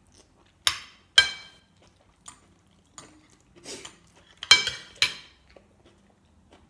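Metal spoon and fork clinking and scraping against a ceramic plate while scooping food: two sharp ringing clinks in the first second and a half, softer taps in the middle, and two more sharp clinks about four and a half to five seconds in.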